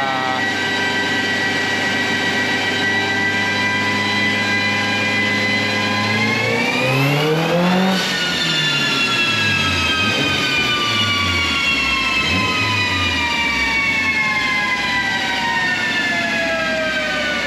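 Turbocharged 4B11 four-cylinder engine of a Mitsubishi Lancer Evolution X being run on a chassis dyno. It holds a steady note, then revs up quickly about six seconds in and peaks two seconds later. The pitch then falls slowly and smoothly for the rest as the car winds down on the dyno rollers.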